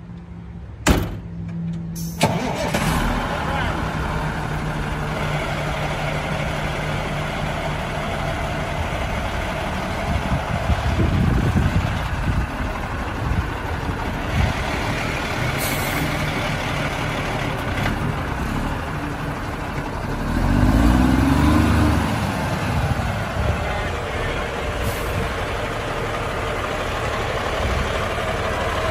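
Cummins diesel engine of a 1990 International water truck starting: a sharp click about a second in, then the engine catches about two seconds in and keeps running. Its note rises and falls once around twenty seconds in as the truck is driven.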